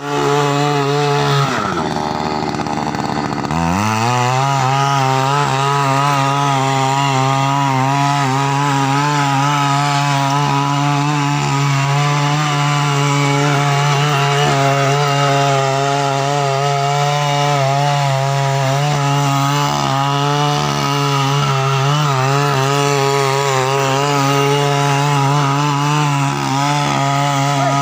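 Small petrol engine of a mini weeder (rotary tiller) running at high revs as its tines churn through soil. Shortly after the start the engine speed falls away sharply, then climbs back up at about four seconds and holds steady.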